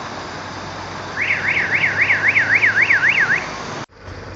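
Car alarm warbling rapidly up and down, about four sweeps a second, for about two seconds over a steady background rush. The sound cuts off abruptly near the end.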